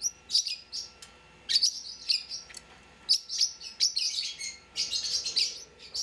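A small bird chirping: repeated short runs of high, rapid chirps with brief gaps between them.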